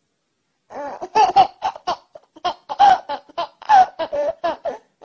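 Baby laughing in its sleep: a run of short giggles, starting just under a second in.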